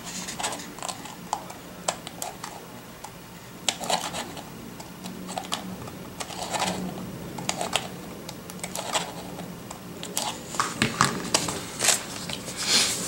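Small scissors snipping off the overhanging edge of a sticker on a paper planner page, as irregular sharp clicks, with the paper rustling as the page is handled.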